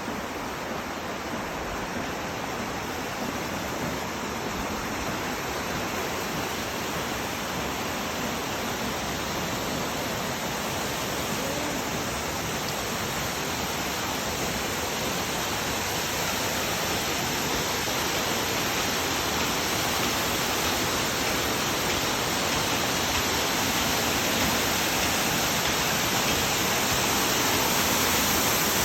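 Waterfall rushing: a steady, even roar of falling water that grows gradually louder.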